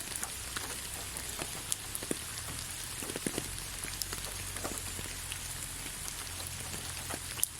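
Steady rain falling, with many separate drops ticking sharply on a surface over an even hiss and a low steady rumble underneath.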